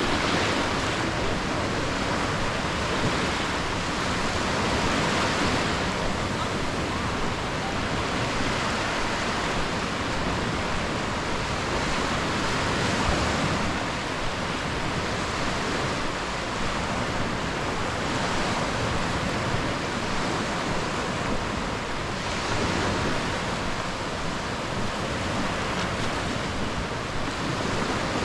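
Sea waves breaking and washing up the shore, the hiss swelling and easing every few seconds.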